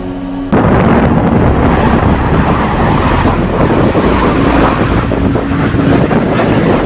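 Jet fighter flying past overhead: loud, rushing jet-engine noise that cuts in abruptly about half a second in and holds steady.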